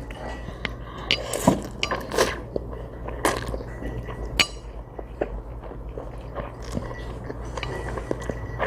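A person chewing and eating chewy jjolmyeon noodles up close, with scattered light clicks and clinks of a utensil against a bowl, over a steady low hum.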